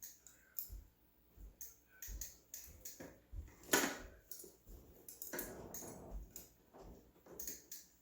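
Irregular metallic clicks, knocks and rattles of bicycle parts being handled as the front wheel and its quick-release skewer are fitted on a mountain bike. There is a sharper knock about four seconds in, followed by a rattling stretch lasting about a second.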